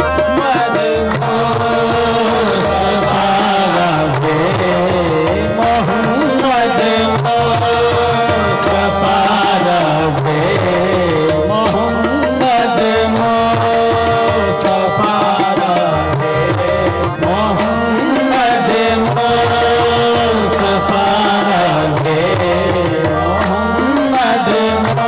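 Qawwali music: tabla drumming under a melodic line, with singing.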